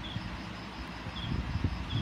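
Low bumps and rustles of hands working over paper on a table, under a steady hiss, with a faint high chirp repeating about every half second.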